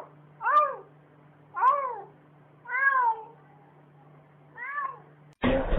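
A domestic cat meowing repeatedly, about five short, rising-then-falling meows spaced roughly a second apart. Near the end a louder noisy sound starts abruptly.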